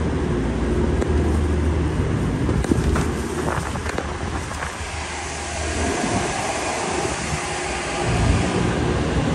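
Steady low drone of running diesel engines, with a few light knocks; the low drone eases for a couple of seconds about six seconds in.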